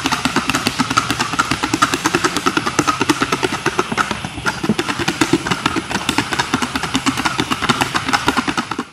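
A Paso Fino mare's hooves beating a rapid, even rhythm on a sandy, gravelly track under a rider, about seven footfalls a second.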